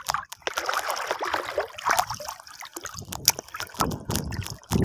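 Muddy water sloshing and splashing close by, in irregular splashes with no steady rhythm.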